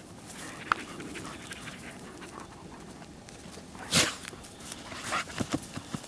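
Dogs sniffing and snuffling hard with their noses in a mouse hole while digging, with puffs of breath and soil rustling. A brief high whine comes under a second in, and one loud blast of breath about four seconds in.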